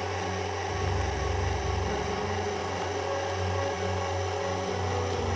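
A steady, low mechanical drone with a slow pulse from a powered Heng Long/Taigen RC tank control unit.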